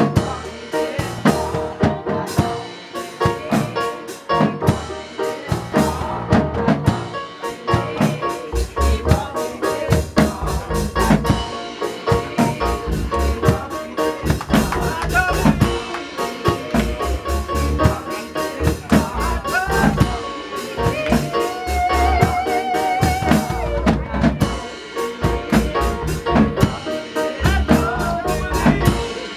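Live gospel music: women's voices singing over a drum kit beating out a steady rhythm, with keyboard accompaniment.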